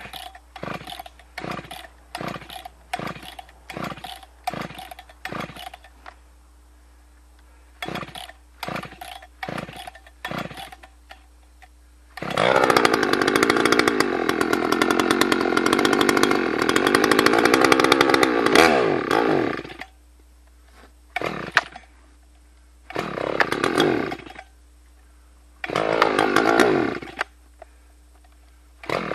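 Husqvarna 61 two-stroke chainsaw being pull-started after sitting unused, with the choke pulled: a quick string of starter-cord pulls, a pause, then more pulls. About twelve seconds in, the engine catches and runs for about seven seconds, then dies. A few more pulls near the end bring only short bursts of running.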